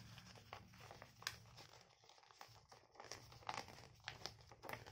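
Faint rustling and crinkling of a sheet of paper being folded and creased by hand, with irregular sharp crackles as the folds are pressed.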